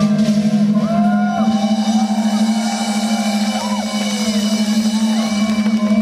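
Live rock band music: a steady held low note with rising and falling pitch slides sounding over it.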